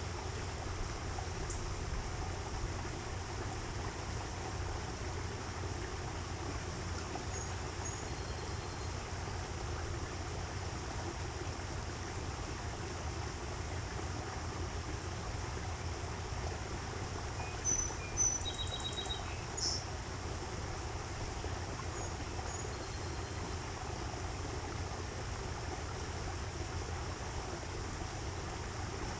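Steady rush of a small aviary stream, with birds giving a few brief high chirps, the loudest cluster about two thirds of the way in.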